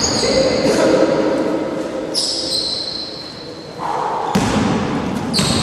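Basketball bouncing on a wooden gym floor amid players' voices and short high squeaks, with the sound echoing in a large hall.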